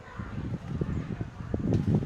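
Wind buffeting the microphone in uneven low gusts that grow stronger toward the end, with a brief click near the end.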